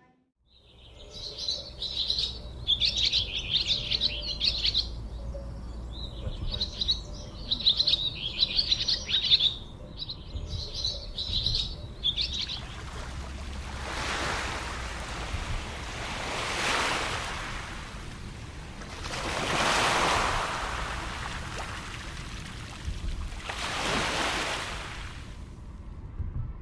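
Small birds singing and chirping busily outdoors over a low rumble for about the first half. The birdsong then stops, and a rushing noise swells and fades four times, several seconds apart.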